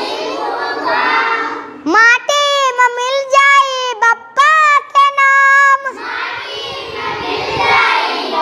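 Children singing a Hindi school song together. About two seconds in, one high, clear voice sings a line alone, and the group comes back in near the end.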